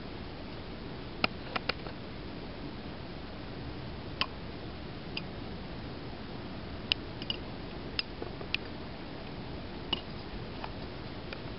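About a dozen sharp clicks at irregular intervals over a steady low background hum.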